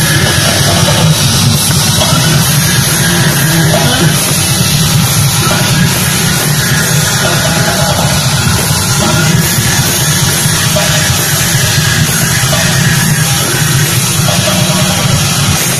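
Heavy metal band playing loud, with electric guitars and a drum kit.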